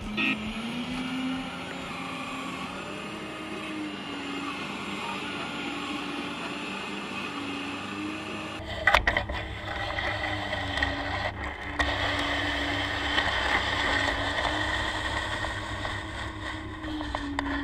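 Hydraulic drive of a 1:8 scale RC Caterpillar 390D excavator whining steadily, its pitch dipping and rising every second or two as the boom and bucket are worked. About nine seconds in there is a sharp knock, and then the sound becomes louder and noisier, heard close up at the bucket as it works in the soil.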